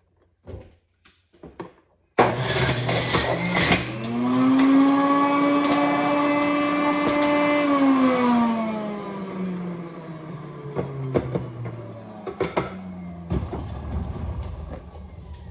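Electric blender blending lemon and ginger, after a few clicks: the motor starts suddenly about two seconds in, whines up to speed and runs steady, then slowly winds down once switched off.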